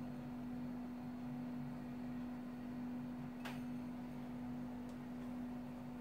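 A steady low hum, one unchanging tone, with a single faint click about three and a half seconds in.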